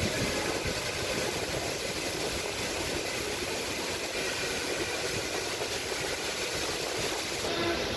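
Steady hiss of rain, mixed with vehicle engines running in street traffic.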